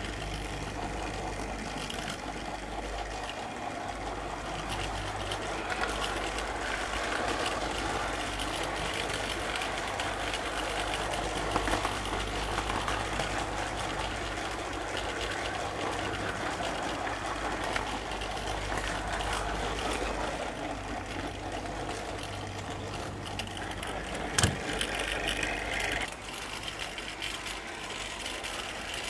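HO-scale model train running, picked up close by a camcorder riding on one of its wagons: a steady whirr of the small electric motor with wheel clatter over the track and a low hum, and one sharp click about 24 seconds in.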